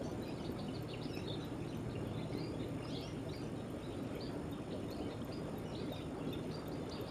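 Shop room ambience: a steady low hum and hiss, with faint small-bird chirps scattered through it.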